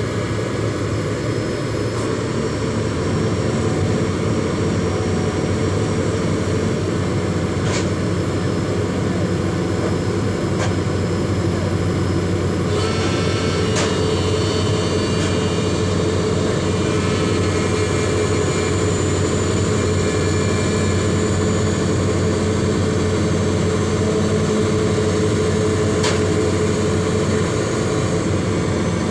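Hydraulic excavator diesel engines running steadily under load, with a few faint knocks.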